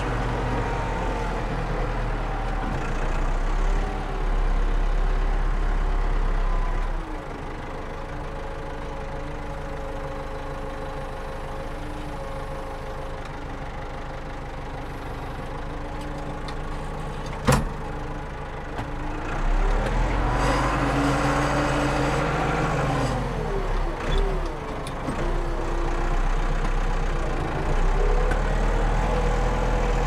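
Tractor engine heard from inside the cab, running steadily, with a single sharp knock about halfway through. About two-thirds of the way through the engine revs up and falls back again.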